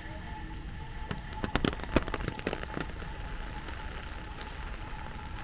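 Heavy rain falling steadily, with a cluster of louder, sharp drop impacts between about one and three seconds in.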